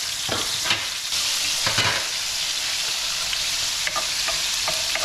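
Onion and garlic sizzling in hot oil in a wok while being stir-fried, with a few short stirring strokes near half a second and near two seconds in.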